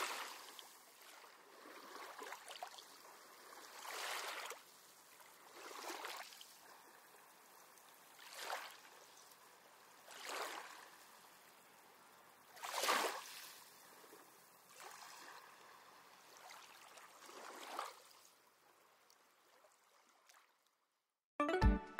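Water sloshing and washing in an orca pool, in soft swells that come and go about every two seconds, then falling quiet. Music comes in right at the end.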